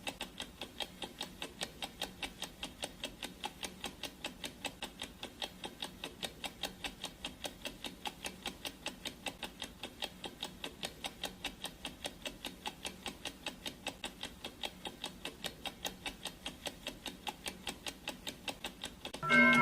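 Clock-ticking sound effect: a steady, even run of ticks. Near the end a gong is struck once and rings on with several tones, the loudest sound here. It is the countdown timer's gong marking four minutes left.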